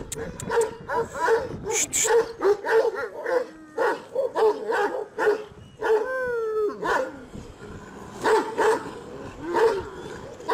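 Dogs barking, two or three barks a second at first. About six seconds in there is one long falling yelp, and a few more spaced barks come near the end.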